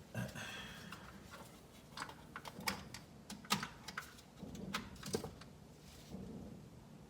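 Light plastic clicks and taps, a dozen or so scattered irregularly over the first five seconds, from hands unplugging and handling the window switch connector in a car door.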